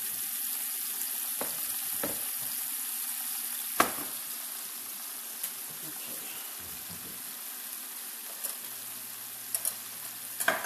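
Port wine pan sauce cooking in a skillet, a steady sizzle. A few sharp knocks break in, the loudest about four seconds in and a few smaller ones near the end.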